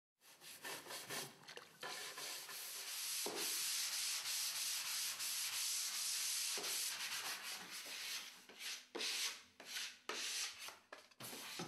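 Scratchy rubbing strokes on wood. Short uneven strokes give way to a long unbroken rub of several seconds, then short strokes again.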